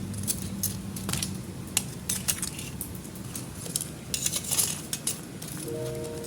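Scattered light clinks and taps of kitchen utensils and dishes, with a close cluster of them about two-thirds of the way in. Soft background music fades out about a second in and comes back near the end.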